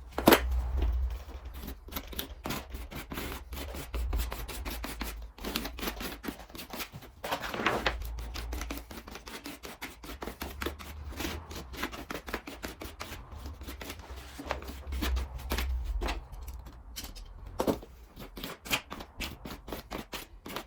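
Irregular scraping and clicking of a scraper working acrylic grab adhesive into the joints of OSB floor boards, with handling knocks and low thumps mixed in.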